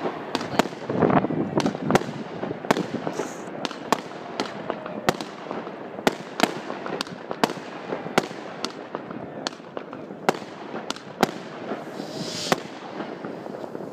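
Fireworks going off in numbers: an irregular stream of sharp bangs, several a second, over a continuous crackling background of more distant explosions. A short high hiss comes about three seconds in and again near the end.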